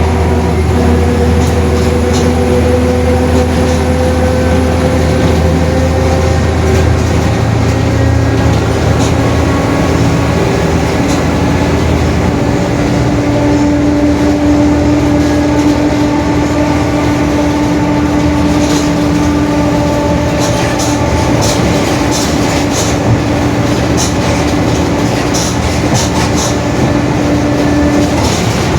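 Mercedes-Benz OF-1721 BlueTec 5 bus running under way, its diesel engine under load and its differential howling. The whine climbs slowly in pitch, then settles into a lower steady whine about ten seconds in, with body rattles clicking through the second half.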